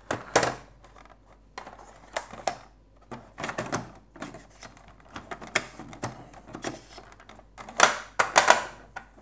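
Plastic shell pieces of a Fisher-Price Alpha Probe toy spaceship being handled and pressed together, giving irregular clicks and knocks, the loudest cluster near the end.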